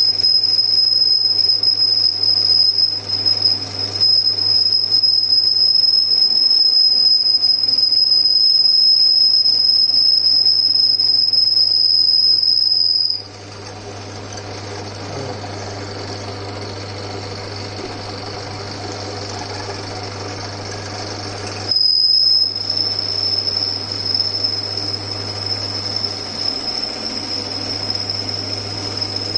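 Old Winfield lathe running with a steady low motor hum, while the cutting tool in the bore squeals in a single steady high whistle. The squeal stops about 13 seconds in and comes back about 22 seconds in; it is the tool singing in a cut that is not cutting cleanly.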